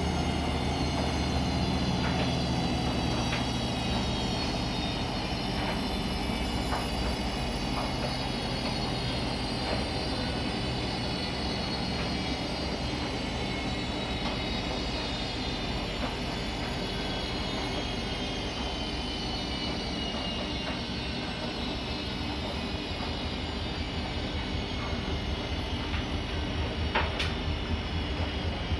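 Siemens iQ300 washing machine running, its motor whine falling slowly in pitch as the drum's spin slows, over a steady low rumble. A couple of sharp clicks near the end.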